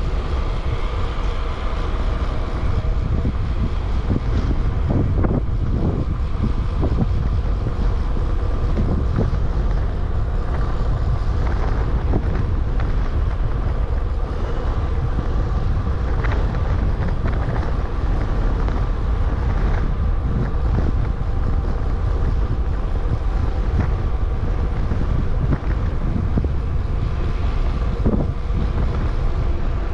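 Wind buffeting the microphone of a bicycle-mounted action camera, over the steady rumble of a bicycle's tyres on the road while riding.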